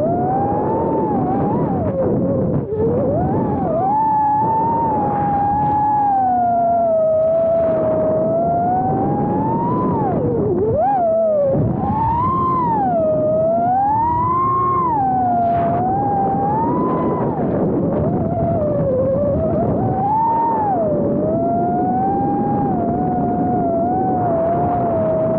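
Brushless motors and propellers of a 4-inch FPV quadcopter whining in flight, the pitch rising and falling constantly with the throttle.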